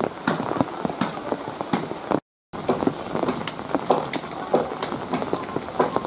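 Heavy rain falling, a dense hiss full of sharp drop hits close to the microphone. The sound cuts out completely for a moment a little over two seconds in.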